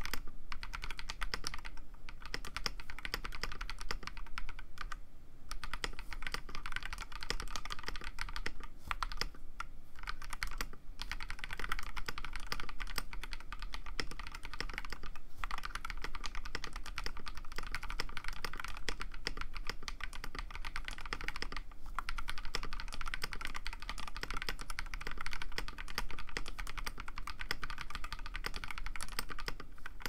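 Fast, continuous typing on a mechanical keyboard fitted with lubed KTT Kang White linear switches, a dense clatter of keystrokes with a few brief pauses.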